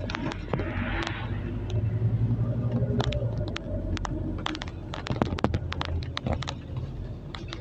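Scania OmniCity city bus heard from inside the passenger cabin: a steady low engine drone under many sharp clicks and rattles from the body and fittings, with a brief hiss about a second in.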